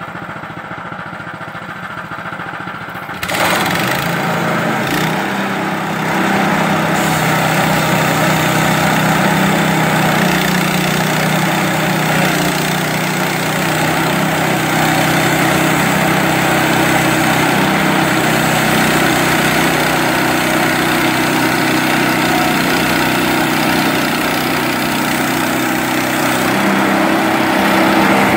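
Engine of a Range Road RR5022 portable bandsaw mill idling, then throttled up suddenly about three seconds in and running steadily at speed as the band blade saws along a spruce log.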